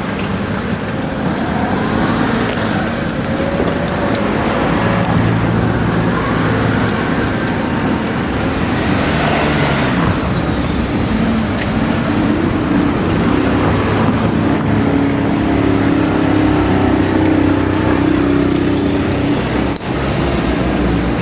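Passing vehicles: steady traffic noise with engine or motor tones that rise and fall in pitch.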